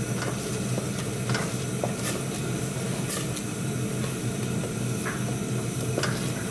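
Saucepan of chopped onions and tomato paste simmering on the hob: a steady sizzle and bubbling with scattered small pops. The onions are being brought to the boil to soften.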